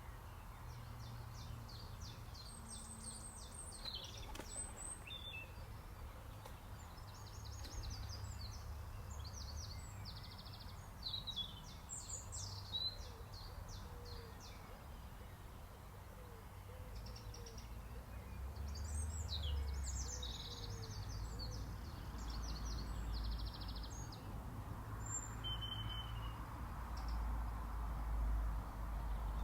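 Songbirds singing outdoors: short high chirps and quick trills from several birds, over a steady low rumble that grows louder in the second half.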